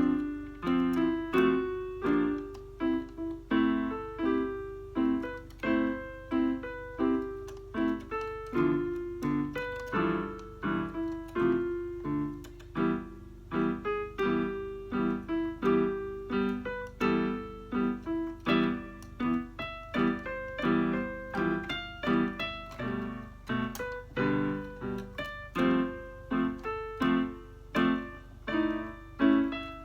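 Electronic keyboard played in a piano voice: chords and a melody in steady, evenly paced notes, each struck and fading, over a faint mains hum.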